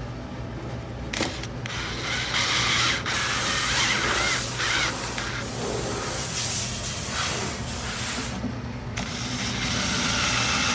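Drill with a Phillips bit driving wood screws into a wooden panel, in two long runs with a short pause near the end.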